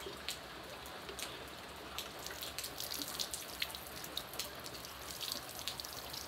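Steady rain falling, with many sharp drops ticking on hard surfaces, as rainwater is poured from a watering can over a person's hair.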